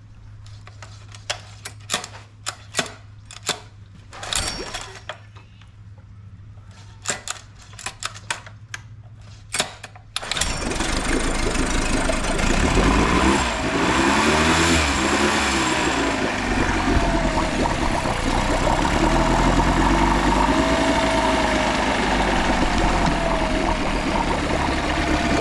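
Scattered sharp clicks and taps, then, about ten seconds in, a late-1980s Honda 7.5 hp four-stroke outboard motor comes in suddenly and runs loud and steady.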